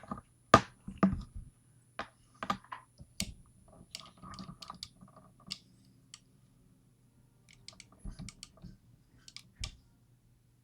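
Irregular small clicks and taps of a gutted pin-tumbler lock's parts being handled, with a short lull about six seconds in.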